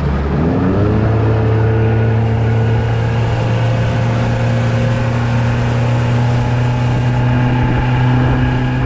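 Yamaha 115 outboard motor pushing the boat under way: it revs up over the first second, then runs steadily at speed, with wind and rushing water beneath it.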